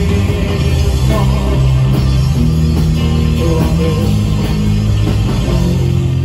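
Psychedelic rock band playing live and loud: electric guitar, bass and drums, with the guitarist singing.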